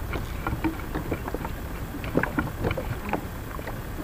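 Irregular light knocks and clatter on a small fishing boat, over water lapping and a low rumble of wind.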